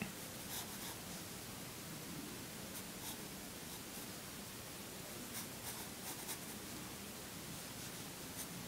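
Wooden pencil sketching on paper: faint scratching of short, light strokes over a steady low hiss.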